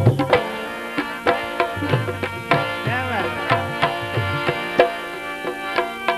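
Instrumental passage of bhajan music: tabla played in a quick, busy rhythm, with some strokes bending in pitch, over steady held notes from an accompanying melody instrument.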